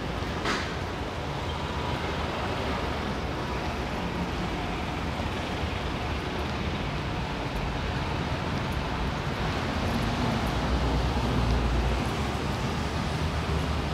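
Steady outdoor street noise of road traffic, with a vehicle's low rumble swelling near the end. A short sharp tick sounds about half a second in.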